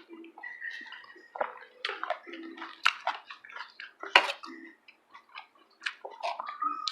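Noodles being eaten: wet slurps and mouth smacks, with short sharp clicks of utensils against a bowl, irregular throughout.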